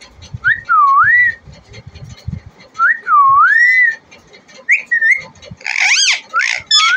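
Pet parrot whistling: clear whistled notes that dip and then rise, three in turn, then louder, harsher calls near the end.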